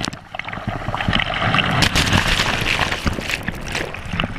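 Shallow surf washing around and over a camera held at the waterline: a steady rush of churning, foaming water broken by many small splashes.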